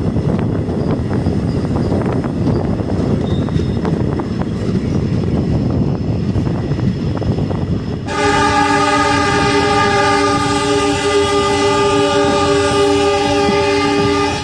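Passenger train running along the track with a steady rumble, then about eight seconds in a train horn sounds one long, loud, steady blast that cuts off suddenly near the end.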